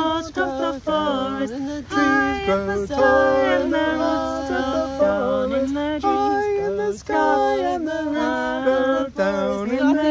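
A small group of men's and women's voices singing a round unaccompanied, several parts overlapping in harmony.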